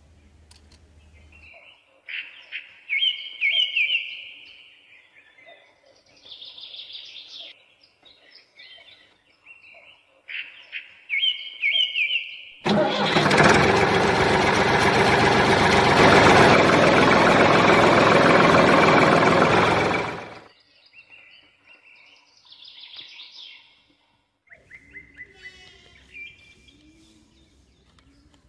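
Birds chirping in short calls, then a loud, steady motor noise that starts abruptly and runs for about seven seconds before cutting off, from the small motor of a homemade model tractor driving; fainter chirping follows.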